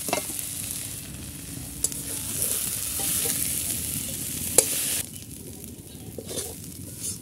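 Metal spatula scraping and clinking against a karai as freshly fried red amaranth greens with prawns are scooped out onto a plate, over a steady sizzle of the hot food. A sharp metal clink comes about four and a half seconds in, and the sizzle drops away about a second later, leaving only faint knocks.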